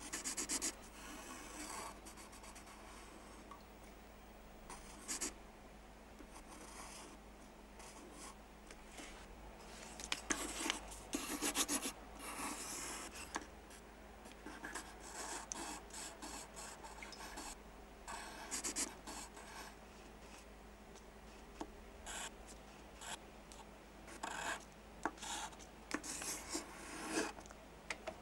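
Pencil scratching on paper in irregular strokes, some in quick runs of short scratches.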